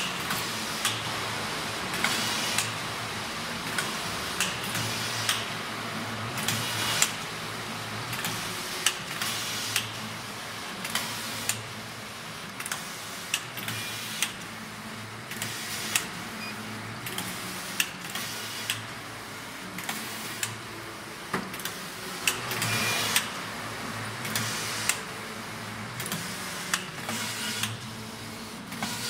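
Phanstar single-system, 52-inch computerized flat knitting machine for collars, running as its carriage travels across the needle bed. It makes a steady mechanical clatter with frequent sharp clicks and a few longer swells of noise.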